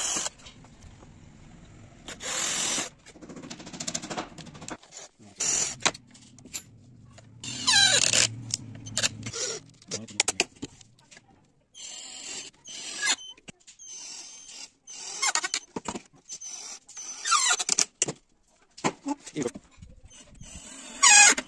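Cordless drill drilling and driving drywall screws into laminated board in a dozen or so short bursts, some with a squeal that rises and falls in pitch.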